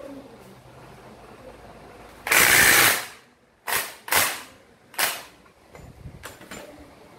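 Cordless impact wrench hammering on the centre nut of a scooter clutch: one long burst of well under a second, then three short bursts in quick succession.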